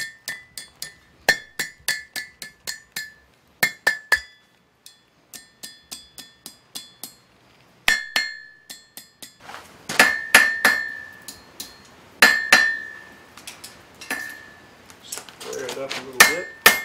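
Hand hammer striking hot iron on a steel anvil while forging a drive hook: quick runs of light taps alternate with heavier single blows, each leaving a bright ringing from the anvil, with short pauses between runs.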